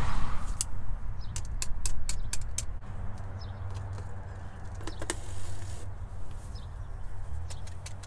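Flexible rod of a dryer-vent lint brush clicking and scraping against the exterior vent hood as it is worked in and out of the vent. Sharp clicks come in a quick run in the first couple of seconds, again about five seconds in and near the end, over a steady low rumble.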